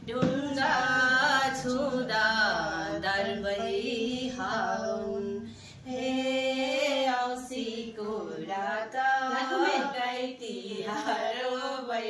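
Women's voices singing a Nepali Bhaileni (Bhailo) Tihar folk song together, line by line, with a short break about halfway.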